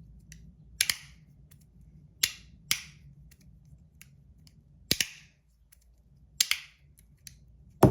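Handheld fidget toy clicking as it is snapped back and forth: sharp clicks, mostly in quick pairs, every second or two.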